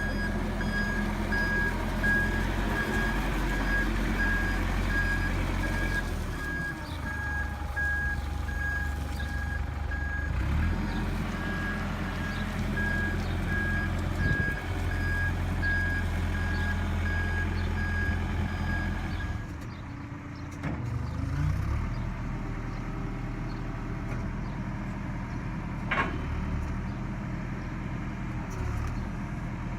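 A heavy machine's reversing alarm beeping in a steady repeating pattern over its running engine. The beeping stops about two-thirds of the way through while the engine keeps running.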